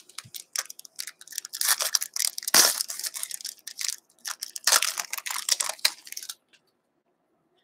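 2019-20 O-Pee-Chee hockey card pack handled: the wrapper crinkles and the cards rasp and slide against each other in gloved hands, in a run of short crinkly rustles that stops about six and a half seconds in.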